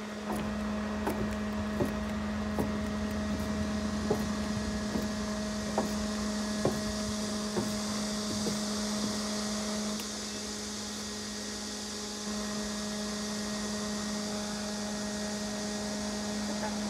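A steady low hum with a light hiss and faint, irregular clicks.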